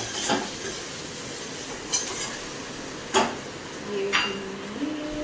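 A metal spoon stirring in a pressure cooker and knocking against it about four times, over the faint sizzle of chopped onion frying in ghee.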